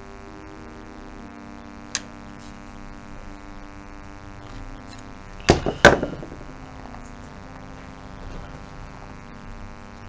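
Soft background music of held, slowly changing notes, with a sharp click about two seconds in and a loud double knock around the middle, likely a hand tool being set down on a wooden table.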